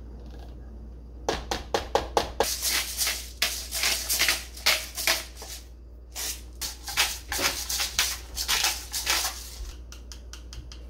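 Hand-twisted pepper grinder cranked over a tub of flour, giving rapid crunchy ratcheting clicks as peppercorns are cracked, in two long bouts with a short pause between them.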